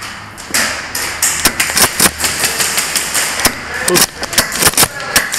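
Airsoft guns firing: a quick, irregular string of sharp cracks, several a second, starting about a second in.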